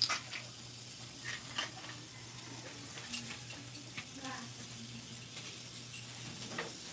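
Whole fish sizzling on a grill plate: a steady hiss of fat and juices with scattered crackling pops, over a low steady hum.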